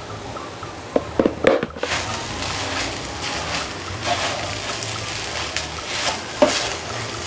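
A spatula stirring sabudana khichdi in a frying pan, scraping and clattering against the pan, with a few sharp knocks about a second in.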